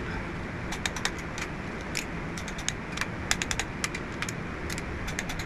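Ratchet head of a torque wrench clicking in short, uneven runs as the rocker arm assembly bolts are tightened to 47.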